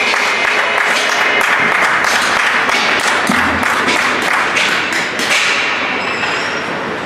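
Applause and a clatter of sharp irregular taps and knocks filling an ice rink at the end of a period.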